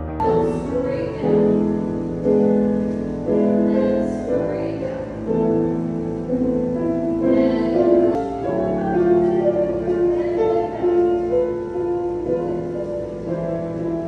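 Background music led by piano, with sustained notes changing every half second or so.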